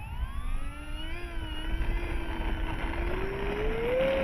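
Electric motor and propeller of a 1.5 m FMS Cessna 182 RC plane being throttled up: a whine that rises in pitch, holds steady, then climbs higher again near the end. Low wind rumble on the microphone underneath.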